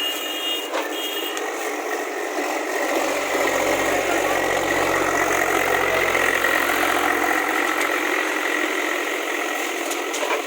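JCB 3DX backhoe loader's diesel engine running at work, getting louder about two and a half seconds in and easing back near the end, with a steady high whine over it.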